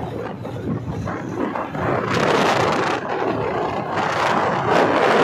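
Wind and road noise rushing past on a moving motorbike, swelling louder about two seconds in and again near the end.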